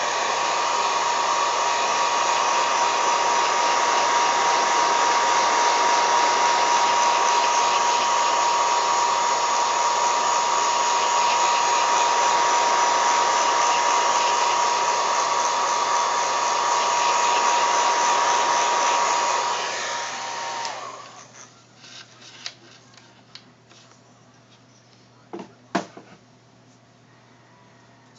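Hot-air blower running steadily with a high motor whine. It is switched off about twenty seconds in and winds down, followed by a few light clicks and taps.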